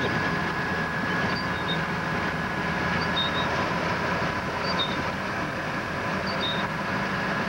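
Tracked Snow-cat running steadily through deep snow, heard from inside the cab: an even engine and track drone with a thin, steady whine on top.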